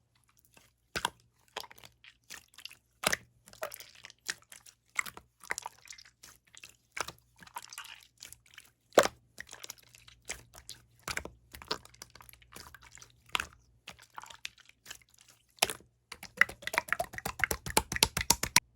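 Opaque slime being pressed and stretched by hand, giving sharp, irregular popping clicks of trapped air, one or two a second, that turn into a quick run of many small pops near the end.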